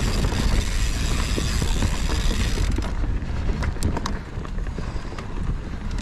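Mountain bike riding over a dirt forest trail: steady tyre rumble and wind on the microphone. A high whirring stops suddenly about three seconds in, after which scattered sharp clicks and ticks come through.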